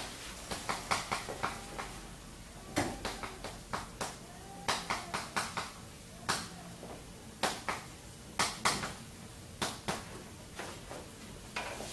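Chalk writing on a chalkboard: an irregular run of sharp taps and short scratchy strokes as characters are written.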